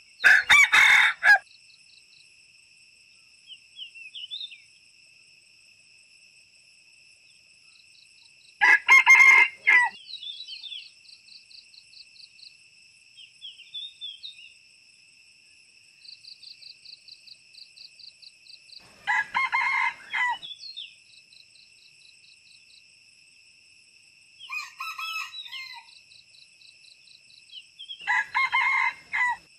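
Red junglefowl roosters crowing: four loud crows about nine seconds apart, each about a second and a half long, with a fainter crow between the last two. Under them runs a steady high insect drone, with short bird chirps and quick ticking in the gaps.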